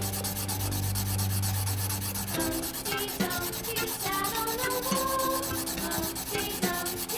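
Rapid, even rubbing strokes of a drawing tool scraping across paper, many strokes a second without a break, over faint background music.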